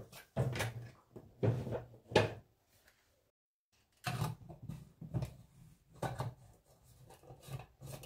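Plastic knocks, clatter and rubbing from handling a child's plastic water bottle and a water jug: the jug set aside, then the bottle's screw-on lid put on and its flip-top cap worked. A brief gap of total silence breaks the sounds a little after three seconds in.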